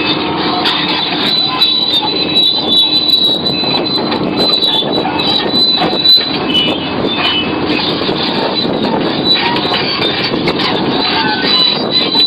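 Sumitomo SH700LHD-5 excavator working, with a steady high-pitched whine over the machine noise and scattered metallic knocks and clanks.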